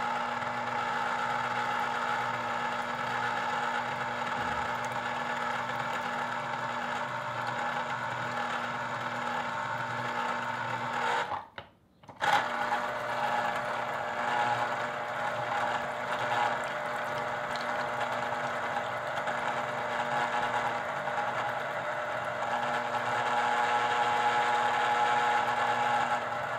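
Cuisinart Pulp Control citrus juicer's electric motor turning the reamer with a steady hum as orange halves are pressed onto it. It stops for a moment a little before halfway, as the fruit is lifted, and starts again with the next press.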